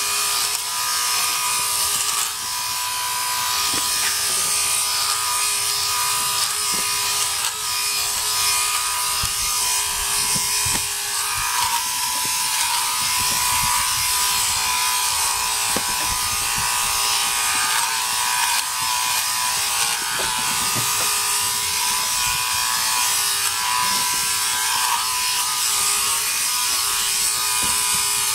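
Handypiece Pro battery-powered sheep clipper running steadily, a constant whine with the cutter's chatter over it, as it clips dirty wool (dags) from a sheep's crutch.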